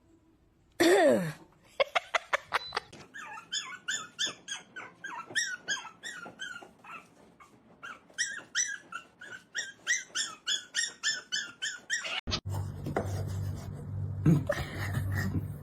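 Dog whimpering: one loud falling cry about a second in, then a long run of short, high, squeaky whines, two or three a second. These stop suddenly near the end and a steady low hum takes over.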